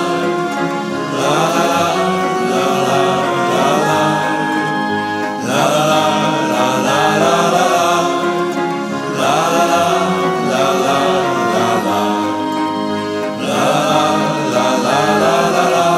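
Background music: the song's closing waltz, with a group of voices singing along.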